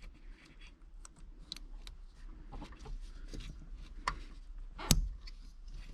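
Plastic wiring-harness connectors being handled and pushed onto the back of a stock car radio: light clicking and rustling, with one sharp snap about five seconds in.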